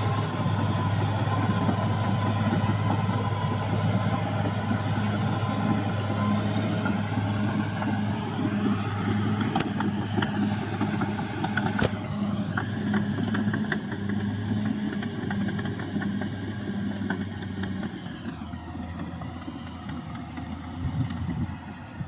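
CAT D6R XL bulldozer's diesel engine running with a steady drone, with one sharp knock about twelve seconds in. The sound slowly grows quieter over the last several seconds.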